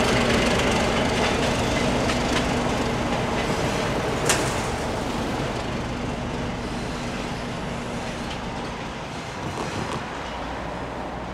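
Baldwin switcher diesel locomotive running, with a steady engine hum that fades gradually as the train moves away. A few sharp clicks sound, the loudest about four seconds in.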